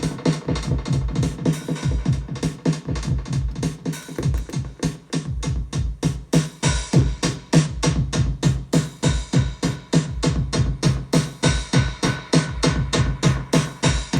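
A simple drum machine groove played through a Binson Echorec 603M valve echo unit, the echo's repeats filling the gaps between the beats with a dense, even train of hits.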